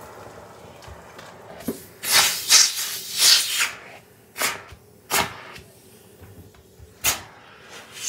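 Handling noises while a clogged central-vacuum hose is being cleared: about two seconds in, a second or so of rustling and scraping, then three sharp clicks or knocks spread over the next few seconds.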